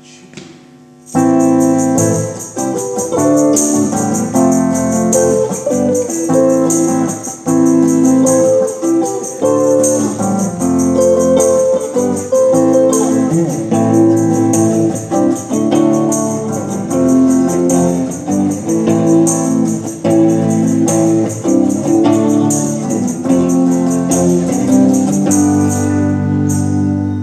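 Live band playing the instrumental introduction to a song, coming in suddenly about a second in with held, slowly changing chords in a keyboard sound.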